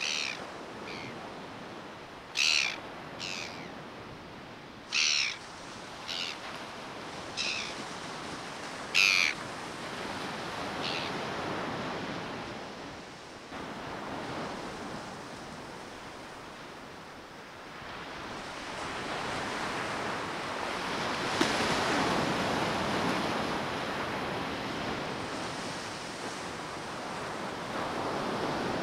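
Surf breaking on the beach, swelling and fading, with a bird giving about nine short, sharp, high calls over the first eleven seconds.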